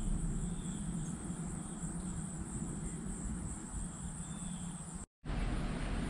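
Outdoor ambience at a backyard feeder: a steady low rumble with a few faint high chirps. The sound cuts out for a split second about five seconds in, then the same rumble resumes.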